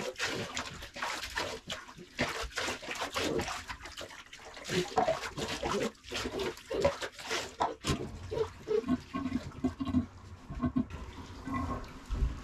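Water poured from a plastic cup splashing over a wet puppy and into a bathtub, in a run of repeated pours. The pours stop about eight seconds in, and it goes quieter after that.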